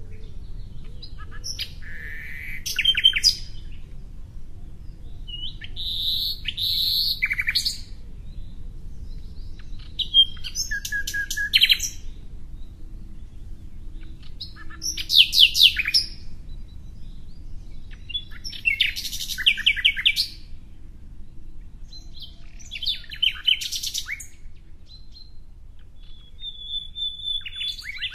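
A songbird singing short phrases about every four seconds, each a quick run of high chirps and trilled notes.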